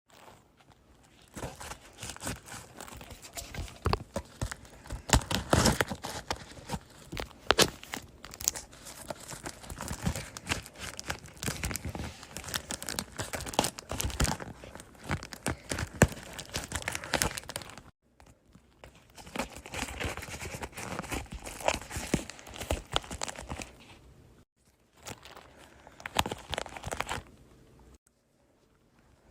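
Dense crinkling and crackling from something being handled or squeezed: many small, sharp clicks in long stretches, with a few short breaks in the second half.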